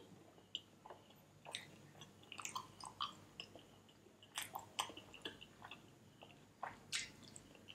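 A person chewing food with lips closed, close to the microphone: faint, irregular wet clicks and smacks.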